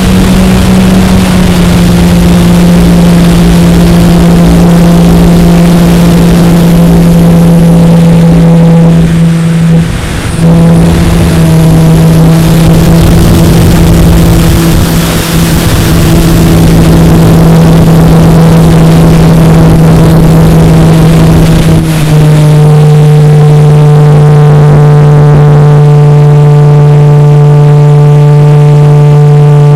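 Bixler 2 RC plane's electric motor and pusher propeller running steadily, loud and close, under heavy wind rush, as picked up by the onboard camera in flight. The drone steps down slightly in pitch under two seconds in. It dips briefly just after ten seconds, then steps down to a lower pitch about 22 seconds in.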